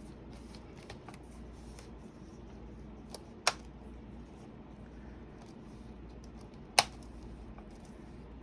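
Plastic clicks of a laptop keyboard being pressed and snapped into place in a Dell Latitude E5470: two sharp clicks about three seconds apart, the first just after a lighter one, with a few faint ticks near the start.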